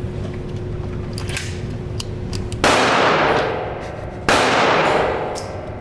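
Two gunshots about a second and a half apart, each echoing and dying away over about a second in an indoor shooting range.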